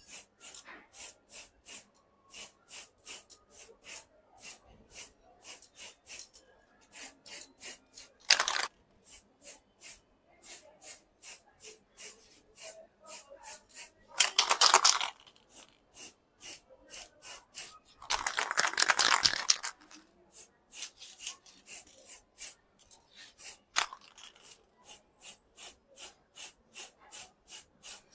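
Rhythmic hand rubbing or scrubbing strokes, about three a second, with a few louder, longer scrapes, the longest lasting about two seconds a little past the middle.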